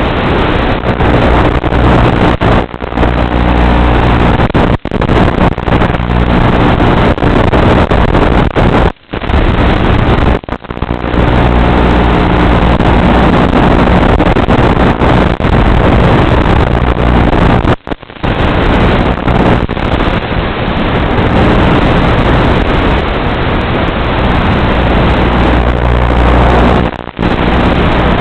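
Electric motor and propeller of a small FPV model airplane running steadily in flight, mixed with wind rush, heard through the aircraft's onboard microphone. The sound dips briefly about three times.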